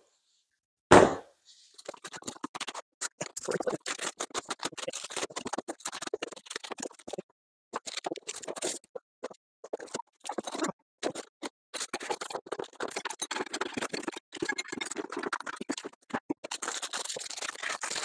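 Cardboard packaging and plastic wrap rustling and crackling as a long boxed awning is unpacked, in dense irregular scratchy bursts with a few short pauses. A short thump about a second in.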